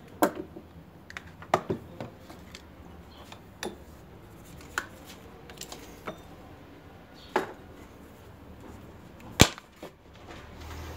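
Scattered knocks and clicks of tools and power cords being handled and set down on a wooden workbench, with no motor running. A sharp click about nine seconds in is the loudest.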